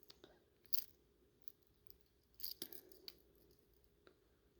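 Faint, scattered small metallic clicks as a treble hook is worked onto the rear of an old fishing lure.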